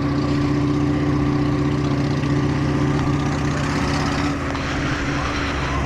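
Honda Shadow 750's V-twin engine running loud at steady revs as the motorcycle rides uphill, with an even exhaust note throughout.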